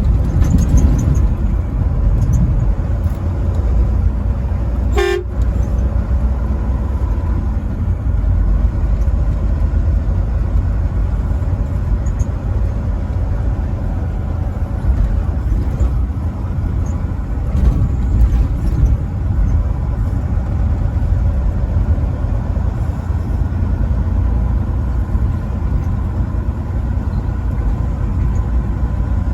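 Steady low rumble of a truck driving on the road, with one short horn toot about five seconds in.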